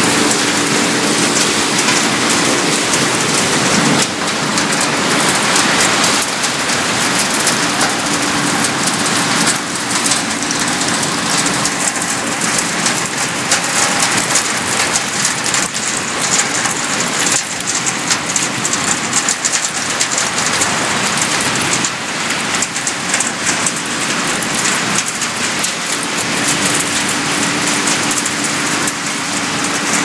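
Refrigerator recycling plant machinery running: a steady, dense crackle of many small clicks and rattles, with a faint low hum that comes and goes.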